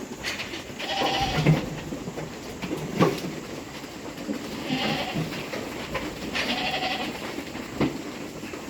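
Goats bleating, three calls in all, with a couple of sharp knocks in between.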